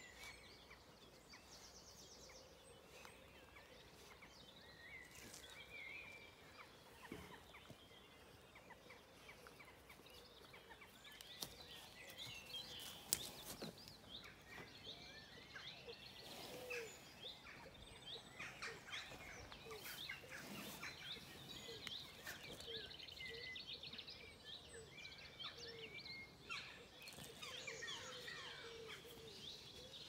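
Faint chorus of many songbirds singing at once, a scatter of short chirps with a rapid trill near the start and again near the end. A couple of sharp clicks come about eleven and thirteen seconds in.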